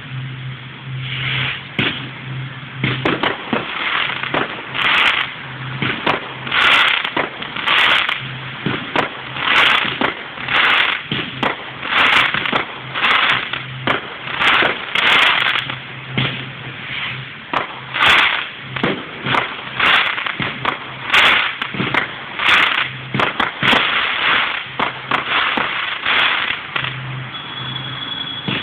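Fireworks going off in a dense, continuous series of bangs and crackles, about two a second.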